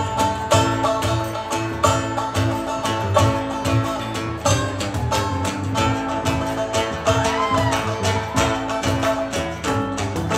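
A small acoustic band playing: plucked strings, including an acoustic guitar, over a steady bass line, with a note that slides up and back down about seven seconds in.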